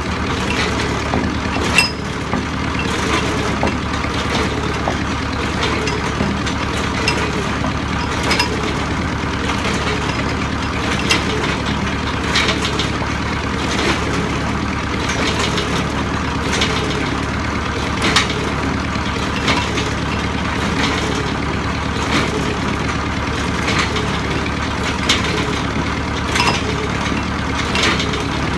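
Cable percussion (shell and auger) drilling rig's engine running steadily, with short sharp clanks at irregular intervals of one to three seconds as the rig works the drilling tool on its wire rope in the borehole.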